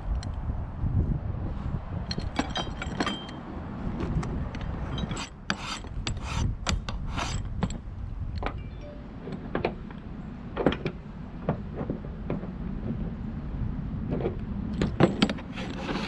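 Coarse hand file rasping against an aluminum hood latch in short strokes, in bursts, with scattered clicks and clinks of metal, over a steady low rumble.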